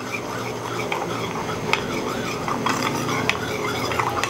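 A metal spoon stirring a cornflour-and-water slurry in a bowl, scraping round the sides with a few sharp clinks, to mix it smooth before it goes into milk as a thickener.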